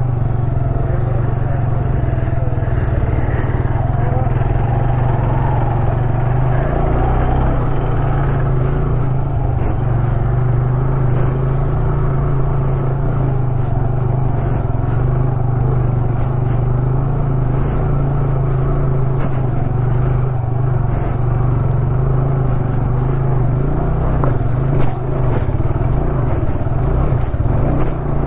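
A motorcycle engine running steadily under way, holding an even loudness throughout.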